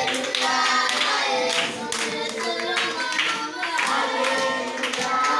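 A group of children singing a mealtime grace together, with hand clapping along.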